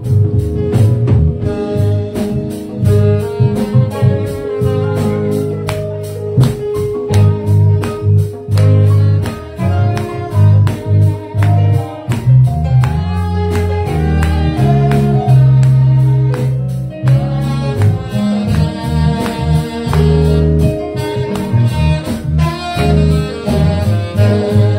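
Live praise band: an alto saxophone plays the melody over a steady, quick drumbeat and a strong bass line.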